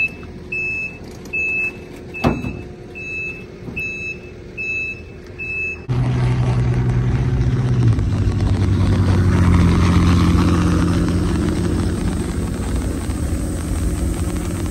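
A backup alarm beeps steadily, a little over one beep a second, with a single metal clank about two seconds in. After an abrupt change, a pickup truck towing a loaded flatbed trailer runs past at close range, getting louder and then fading.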